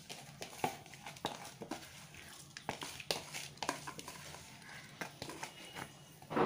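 Faint, irregular clicks and taps from a pot of rice and broth in an aluminium pressure cooker with a wooden spatula in it, over a low hum, and a louder rushing noise right at the end.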